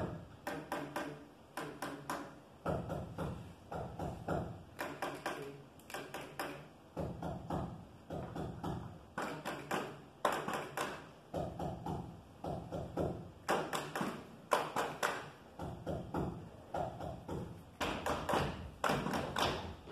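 Hand claps and taps by a few people, a steady run of sharp strokes grouped in a rhythm.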